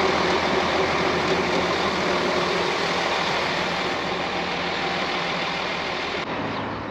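A vehicle engine running steadily: a constant low drone under a broad rushing noise. About six seconds in, the sound changes abruptly and the hiss drops away.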